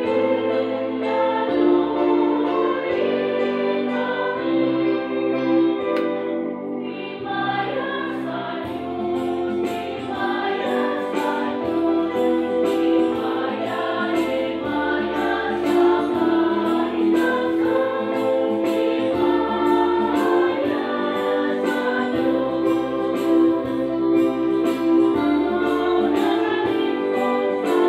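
A choir singing a hymn over instrumental accompaniment with a bass line, with a steady beat of ticks joining about eight seconds in.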